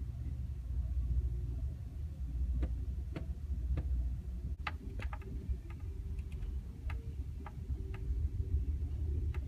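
Low, steady rumble of an Amtrak passenger train rolling slowly, heard from inside the car, with scattered light clicks and ticks coming irregularly from a few seconds in.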